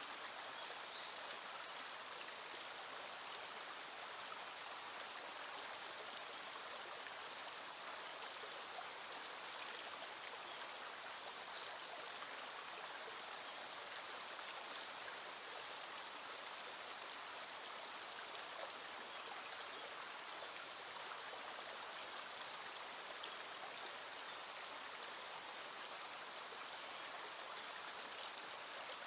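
Small stream flowing, a steady even rush of water.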